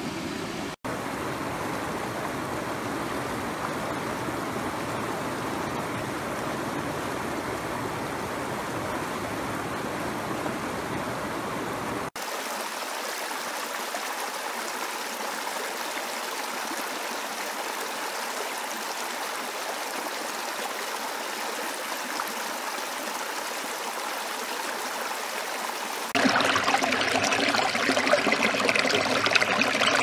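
Stream water rushing and splashing over rocks, a steady flow. The sound changes abruptly twice: about 12 seconds in it loses its low rumble, and a few seconds before the end it becomes louder and brighter.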